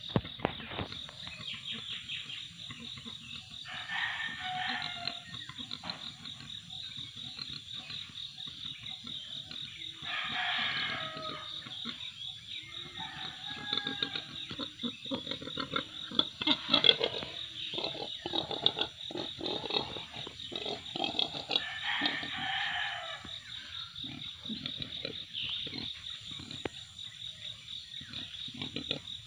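A rooster crows several times, each call ending in a falling note, over a steady high chirring of insects. Short clicks and knocks run throughout, the loudest near the middle.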